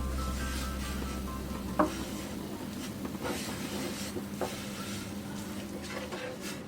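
A utensil stirring and scraping a thick rice-flour dough in a frying pan, with a few sharp clicks of the utensil against the pan. Background music fades out in the first two seconds.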